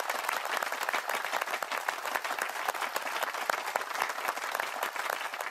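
Applause sound effect: a crowd clapping steadily, laid over the congratulations screen at the end of a quiz.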